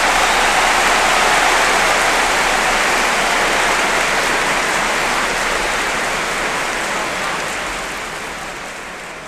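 Audience applauding, a dense, even clapping that begins to fade away near the end.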